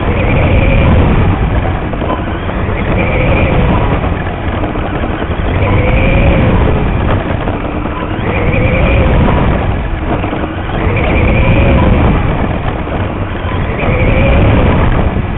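Radio-controlled Mini Late Model race car heard from a camera mounted on the car itself: its motor and gears whine, rising and falling in pitch about every two and a half to three seconds as it speeds down each straight and slows through the turns, over a heavy rumble of wind and track noise on the microphone.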